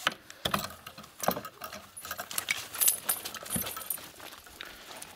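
Steel chain of a tethered dog clinking and rattling irregularly as the dogs move about.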